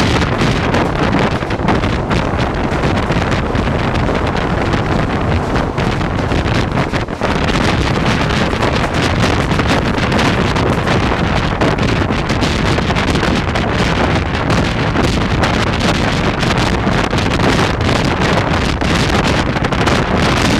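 Wind buffeting the microphone held out of a moving passenger train's window, over the steady running noise of the train on the track.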